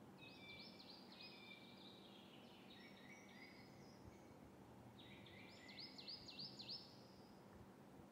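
Faint birdsong over near silence: two runs of quick, repeated chirping notes, the first starting about half a second in and the second about five seconds in, over a low steady hum.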